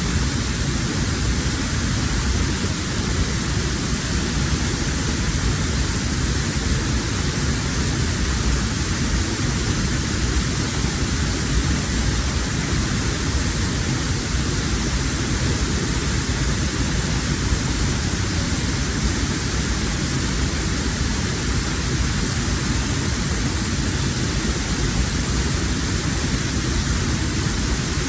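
A strong waterfall pouring down, a steady heavy rush of water close by, heard through a waterproof camera housing.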